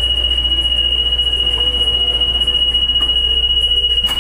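Light-rail train car running, a steady low rumble with a single steady high-pitched tone over it.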